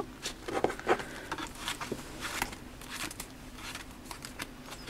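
Pokémon trading cards being handled and gathered up by hand: a string of soft, irregular taps, clicks and rustles of card stock.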